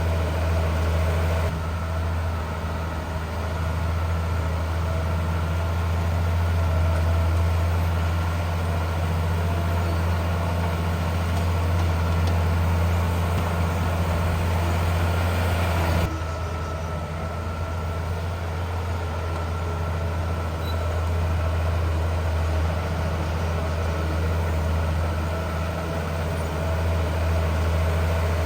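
Heavy diesel engine of earthmoving equipment running steadily at low revs, a deep even drone. Its tone shifts abruptly about a second and a half in and again about halfway through.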